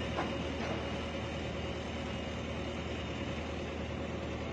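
Excavator diesel engines running steadily: a low, even hum with a thin steady whine above it.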